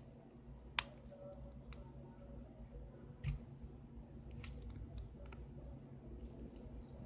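Faint clicks and ticks of a thin opening tool prying between a Huawei Mate 9's frame and screen assembly, the sharpest click about a second in, as the frame's little clips pop loose.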